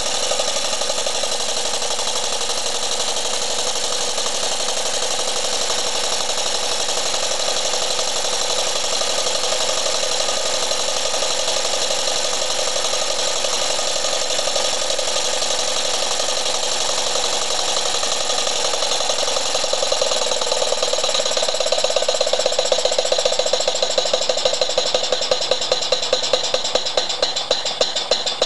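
Model horizontal steam engine running fast, a steady clatter of rapid exhaust beats and hiss. Near the end the beats become more distinct and more spaced out, as though the engine is slowing.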